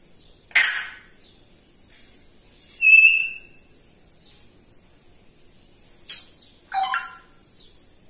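African grey parrot calling: a harsh squawk about half a second in, a clear whistle around three seconds in, and two short squawky calls near the end.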